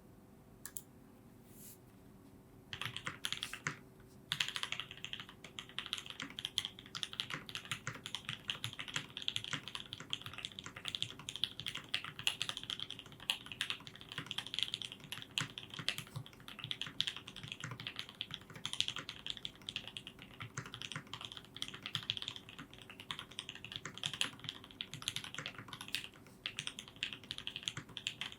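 Mode Eighty mechanical keyboard being typed on. It has Banana Split linear switches lubed with 205g0 and filmed, Zeal stabilisers and an aluminium plate. A few single key presses come first, then continuous, rapid keystrokes from about three seconds in, with a brief pause just after.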